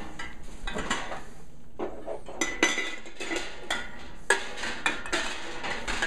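Empty glass quart mason jars clinking and knocking against each other and against an enamel canning pot as they are set into hot water to sterilize, with sharper knocks about two and a half and about four and a quarter seconds in.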